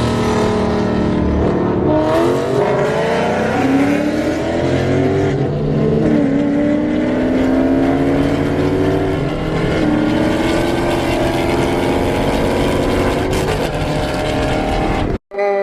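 Car engine under hard acceleration, its pitch climbing through each gear and dropping at several upshifts. It cuts off abruptly near the end.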